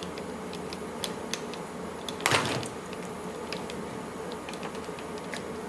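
Handling noise as a plush robot toy's fur and plastic parts are worked by hand: scattered small clicks and ticks, with one louder brief rustle a little over two seconds in.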